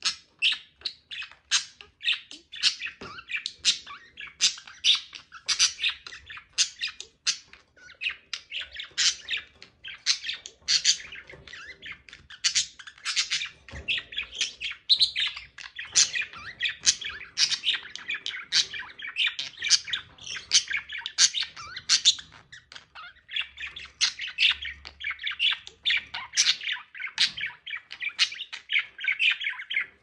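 Budgerigars chattering during courtship: a fast, unbroken stream of short chirps and squawks.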